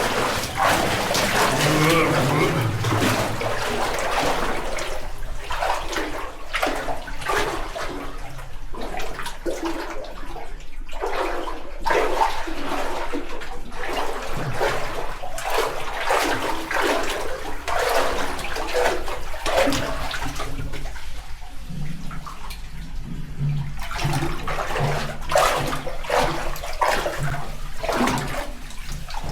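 Warm hot-spring water splashing and sloshing in uneven bursts as someone wades through it.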